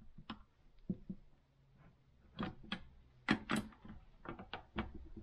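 Irregular metallic clicks and clinks of a socket ratchet and wrench on a chainsaw cylinder stud, jamming one nut tight against a second nut so the stud can be backed out.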